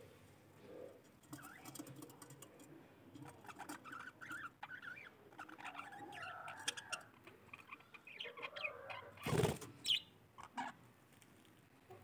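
Budgerigars chattering and warbling in a wavering run of chirps, with scattered small clicks. About nine seconds in comes a brief, loud rustle, the loudest sound here, then a sharp click.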